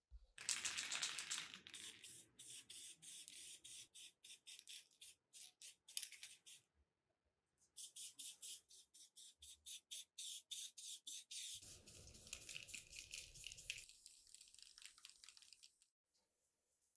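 Aerosol spray-paint can hissing, first in a longer spray and then in many short bursts, with a brief pause in the middle.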